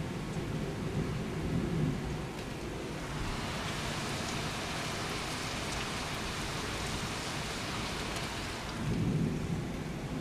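Heavy thunderstorm rain hissing steadily, with low rumbles of thunder near the start and again near the end. The rain hiss swells in the middle.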